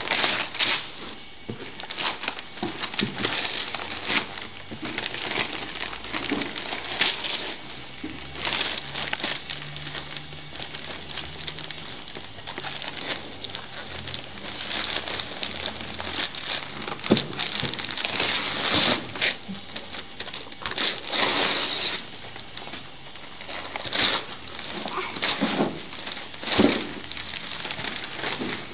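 Gift wrapping paper crinkling and tearing as it is pulled off a wrapped box by hand, in many short, irregular rustles and rips.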